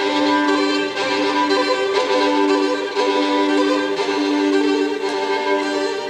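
Violin played with long bowed notes: a lower note sounds in strokes about once a second beneath a steadily held higher note.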